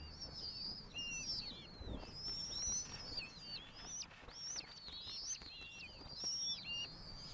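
Ferruginous hawk nestlings calling: a steady run of high, thin, slurred whistles that rise and fall, several voices overlapping. A soft low thump about two seconds in.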